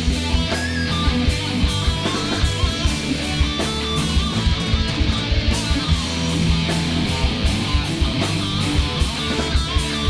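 Rock song from a studio album recording: electric guitars, bass guitar and drum kit playing with a steady beat.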